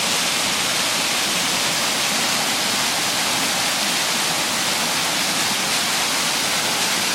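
Waterfall on a creek pouring steadily into a swimming hole: a constant, even rush of falling water.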